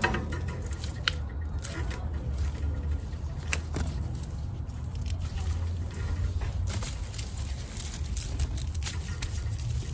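Fava bean plants rustling, with scattered crisp snaps as pods are picked off the stems by hand, more of them in the second half. A steady low rumble runs underneath.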